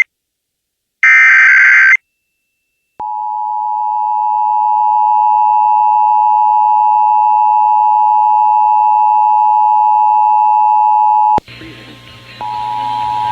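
Emergency Alert System monthly test: the last burst of the SAME digital header, a screeching data squawk lasting about a second, then after a short silence the steady two-tone EAS attention signal. About eleven seconds in it cuts to a hissy recording with a low hum, where the attention tone starts again a second later with a faint voice station ID beneath it.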